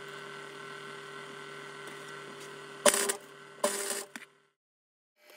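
Gasless (flux-core) MIG welder: a steady hum, then two short bursts of arc crackle about three and three and a half seconds in as the tail washers are tack-welded. The hum cuts off a little after the second weld.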